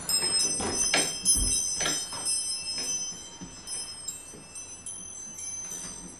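Small high-pitched bells ringing: a flurry of strikes in the first three seconds, loudest about a second in, then the bells ring on more faintly and sparsely.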